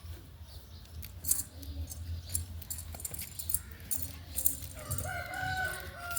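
Goats moving about in their pen, with scattered sharp clicks and light rattles. About five seconds in, one goat bleats in a single drawn-out call.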